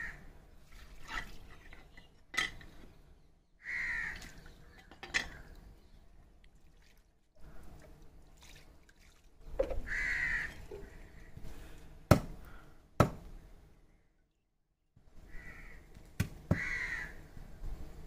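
Crows cawing about five times at intervals, harsh calls, over light water splashing as a plucked quail is rinsed. Two sharp clicks, the loudest sounds, come a second apart past the middle.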